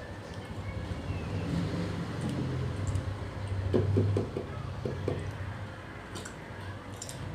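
Motorcycle engine running outside, a steady low hum that swells to its loudest about four seconds in and then dies down.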